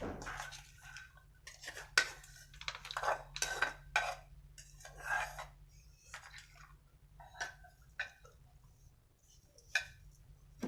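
A spoon scraping and clinking against a dish, again and again at an irregular pace, as food is mixed.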